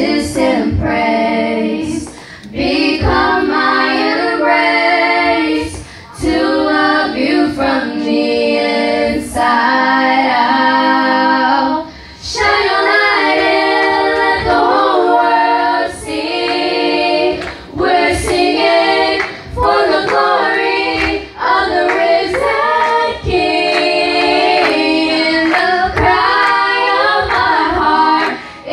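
Young girls singing a worship song together in phrases a few seconds long, with more voices joining as a small group.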